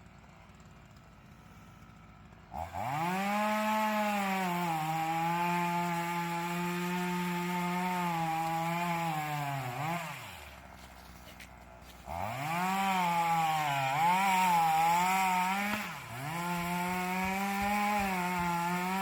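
Chainsaw revved up to full speed three times, each burst lasting several seconds, with its pitch sagging and wavering as the chain cuts into a tree trunk. It drops back between bursts, about ten and sixteen seconds in.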